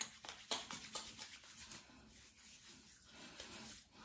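Faint rubbing of hands slick with shaving oil as it is spread between the palms and onto the face, with a few soft clicks near the start.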